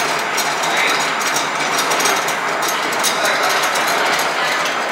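Copra oil expeller (screw press) running steadily as it crushes dried coconut: a continuous mechanical din with a fast, fine clicking running through it.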